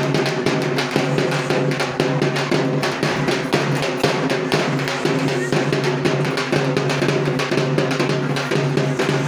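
Rapid, continuous drumming with a steady droning tone underneath.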